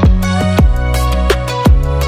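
Electronic background music: sustained synth notes over deep kick drums that drop sharply in pitch, about three hits in two seconds.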